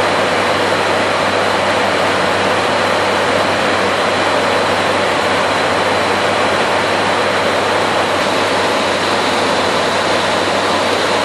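Steady cockpit noise of an ATR-72-500 with its twin turboprop engines running: an even, loud rushing hiss over a constant low propeller drone.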